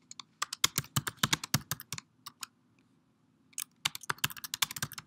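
Computer keyboard typing: quick runs of keystrokes, with a pause of about a second in the middle before a second run.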